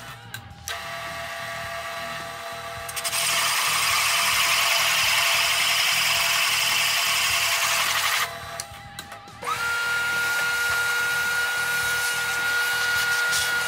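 Drill press with an adjustable circle cutter running at its slowest speed, 140 RPM, the cutter scraping through the wood board with a harsh steady hiss for about five seconds. After a short lull, a shop vacuum starts with a quick rising whine and runs steadily to clear the chips.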